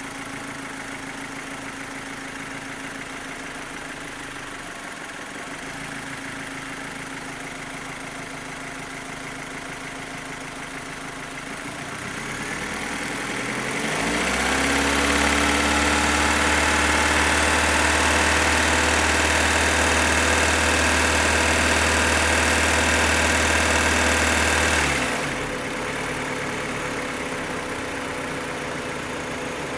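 Opel Astra H's Z16XEP 1.6-litre four-cylinder petrol engine idling, then revved up about halfway through and held at higher revs for about ten seconds before dropping back to idle. It has a loud ticking, which goes away when fuel to cylinders 3 and 4 is cut. The owner likens it to the valve lifters, but new lifters on those cylinders did not cure it, and he suspects the non-original camshafts.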